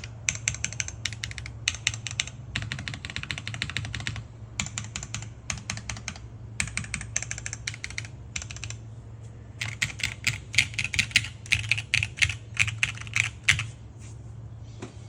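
Typing on a gasket-mounted Vertex Arc 60 mechanical keyboard with Ktech S2 tactile switches and GMK keycaps, rapid key clicks in bursts. After a short pause about nine seconds in comes a faster, louder run that stops shortly before the end.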